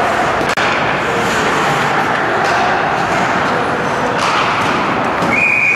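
Loud, even noise of an ice hockey game in a rink. Near the end, a referee's whistle sounds one steady blast, stopping play.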